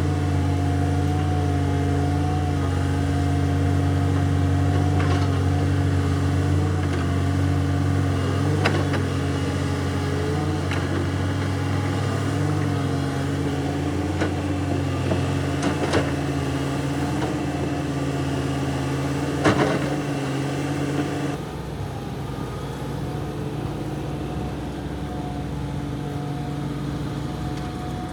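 Construction machinery running with a steady, humming drone, broken by a few sharp clicks or knocks; the drone changes abruptly about three quarters of the way through.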